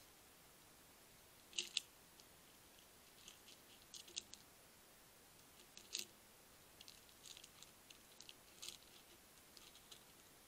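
European hedgehog crunching dry kitten biscuits: sharp, irregular crunches in short clusters, the strongest about one and a half seconds in and again about six seconds in.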